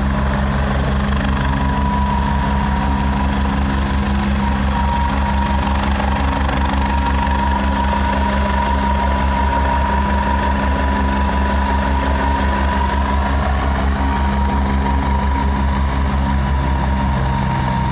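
Helicopter coming in to land: its rotor beats in a fast, steady low pulse under a steady high-pitched whine.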